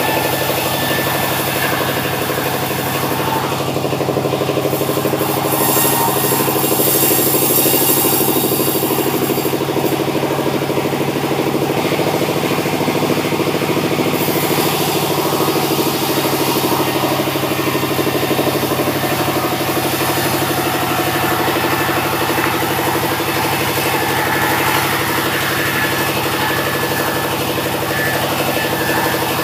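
Sawmill machinery running steadily with a continuous engine drone. A brighter high hiss is added for several seconds in the first half.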